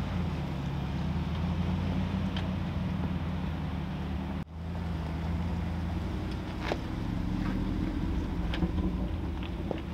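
Jeep engines running at low speed on a rocky trail, a steady low rumble, with a few faint clicks. The sound cuts out for a moment about halfway through.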